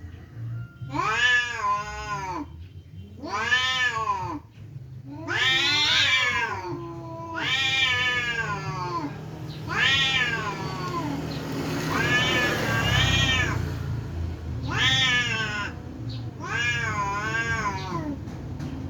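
Two domestic cats yowling at each other in a fight standoff: about eight long, drawn-out calls, each rising and then falling in pitch.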